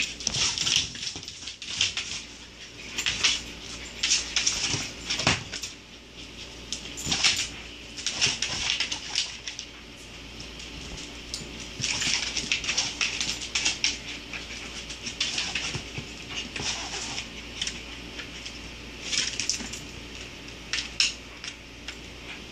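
A dachshund playing with a tennis ball inside a plastic laundry basket, pushing the basket about on a vinyl floor: irregular scrapes, knocks and rattles of plastic on the floor, coming in clusters with short lulls between.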